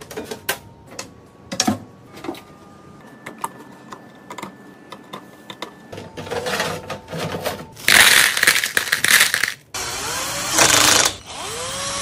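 Clicks, taps and knocks of a steel PC case being handled, with brief metallic rings. From about halfway, a Corsair RM850x power supply scrapes and slides into the case's bottom bay, loudly for a moment. Near the end a power screwdriver whirs, rising in pitch, as it drives the power supply's mounting screws.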